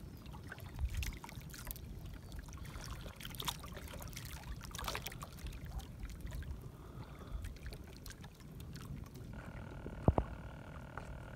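Water splashing and dripping as a fishing longline is hauled by hand into a small boat, with scattered light knocks and one sharp knock about ten seconds in.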